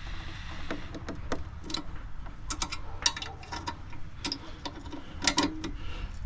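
Ratchet wrench clicking in short, irregular runs of sharp ticks while tightening the mower's blade bolt.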